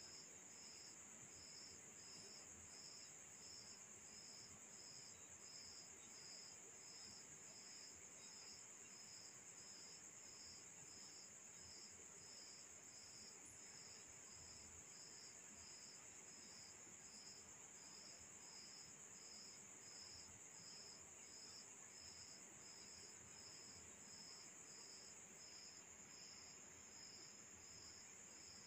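Faint cricket chirping in an even, unbroken rhythm, about three chirps every two seconds, over a steady high-pitched trill.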